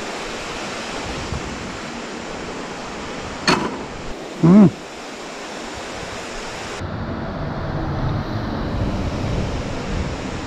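Steady rush of flowing creek water. A short click comes about three and a half seconds in, and a brief hummed 'hmm' about a second later. About seven seconds in the rush turns duller and lower.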